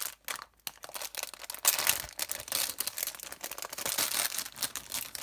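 Packaging crinkling and rustling as it is handled, with scattered sharp clicks; loudest a little under two seconds in.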